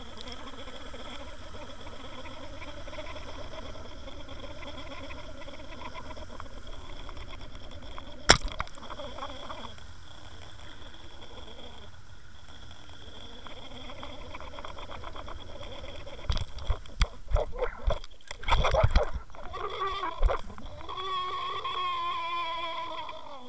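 Underwater sound of a trolled lure rig: a steady hum with a high whine carried through the water. There is a single sharp knock about a third of the way in, then a cluster of loud knocks and thumps against the camera housing as a northern pike strikes, followed by a wavering whine near the end.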